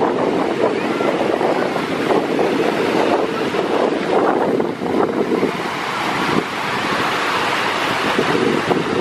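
Wind buffeting the microphone over the sea, with waves washing, a loud steady rush that rises and falls in gusts.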